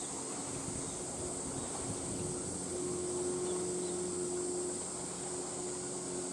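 Steady high-pitched insect drone with a faint low hum underneath that fades in and out.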